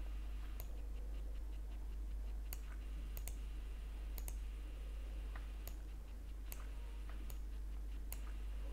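Computer mouse clicking about ten times at irregular intervals, over a steady low electrical hum.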